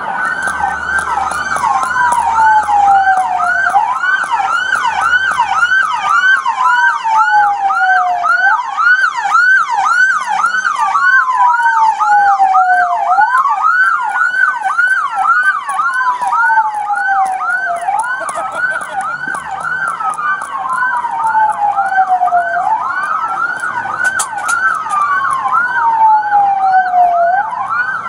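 Two emergency vehicle sirens sounding together, loud: one in a fast yelp rising and falling about twice a second, the other in a slow wail that climbs and drops about every five seconds.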